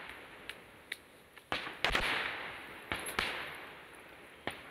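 Aerial firework shells bursting one after another: sharp bangs, the loudest pair about one and a half to two seconds in and another pair around three seconds, each trailing off in a long echo.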